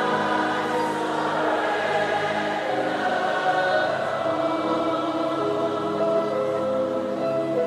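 Many voices singing a slow gospel worship song together, holding long, sustained notes.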